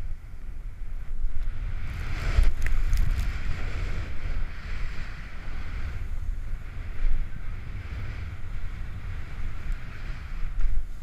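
Splitboard sliding and carving through powder snow, a steady hiss of spraying snow under heavy wind buffeting on the action camera's microphone. It swells briefly about two seconds in, with a few sharp ticks.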